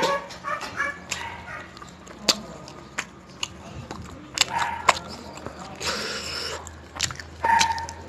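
Eating by hand: chicken curry pulled apart with the fingers and chewed, with scattered sharp clicks and wet mouth sounds. Over it a small child gives a few short, high squeals and babbles, near the start, about halfway and near the end.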